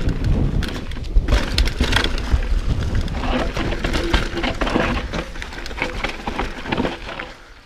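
Mountain bike descending a dirt trail at speed: tyres crunching over dirt and stones and the bike rattling with a quick run of clicks and knocks over the bumps, with wind rumbling on the microphone.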